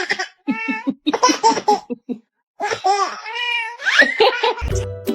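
Baby laughing in a series of short, bouncy bursts of giggles. A jingly music tune starts near the end.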